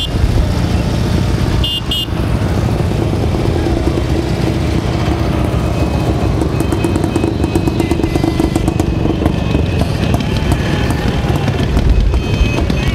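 Motorcycles, including old sidecar outfits, riding past one after another at low speed, their engines running steadily, with music playing along with them.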